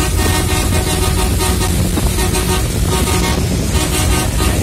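Road vehicle's engine running steadily, heard from on board while driving, with a low hum and a pitched tone that comes and goes every second or so.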